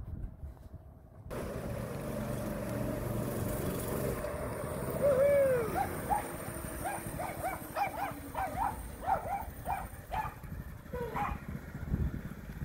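An animal calling in a quick run of short, repeated calls, several a second, from about the middle on, over a steady low rumble.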